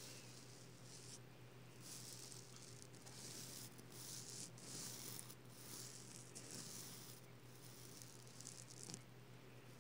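Reversible flip sequins on a pillow rustling faintly as a hand brushes across them, in repeated swishing strokes about once a second. A steady low hum sits underneath.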